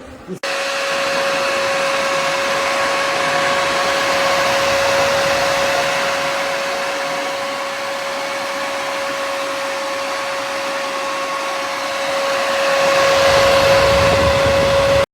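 AC Infinity Cloudline Pro S8 200 mm inline duct fan running: a steady rush of air with a steady whine over it. It grows louder and fuller about two seconds before the end, then cuts off suddenly.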